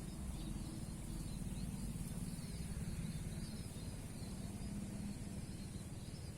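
Steady outdoor background: a low rumble, a constant high hiss, and faint scattered chirps like small birds.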